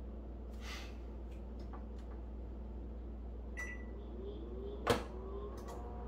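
Microwave touch pad being pressed: soft clicks, one short high beep a little past halfway and a sharp click about five seconds in, over a steady low hum.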